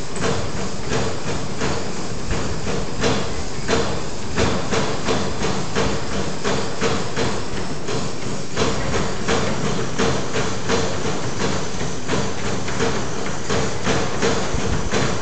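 Running footfalls pounding on two treadmill belts in a fast, steady rhythm of about three thuds a second, over a steady hum.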